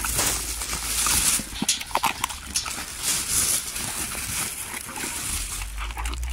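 Dogs taking raw meat at a wire-mesh fence: scuffling and rustling, with a few sharp knocks and short canine noises.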